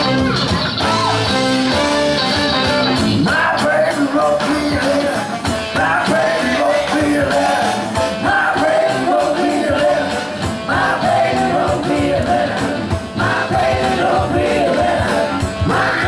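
Rock band playing with no words sung.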